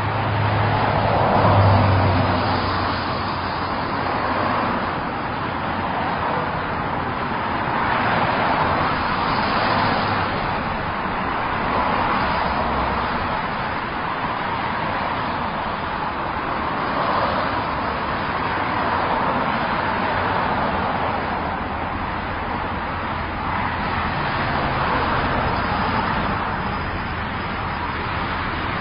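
Continuous highway traffic: a stream of cars passing, their tyre and engine noise swelling and fading every few seconds. The loudest vehicle, with a low engine hum, passes about a second and a half in.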